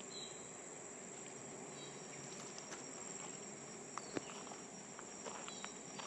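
Steady, high-pitched drone of insects in the forest, with a few light ticks, the sharpest about four seconds in.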